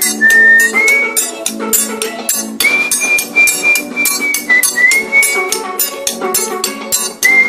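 Music led by a triangle struck in a quick, even rhythm, over a high held melody line that steps between notes and lower sustained chords.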